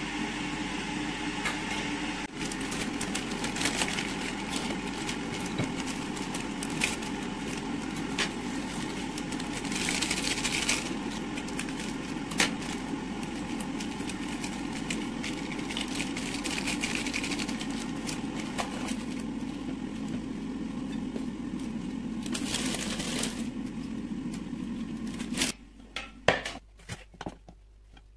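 A steady kitchen fan hum with scattered clicks and clinks of cookware. It cuts off abruptly about 25 seconds in, leaving a few light taps.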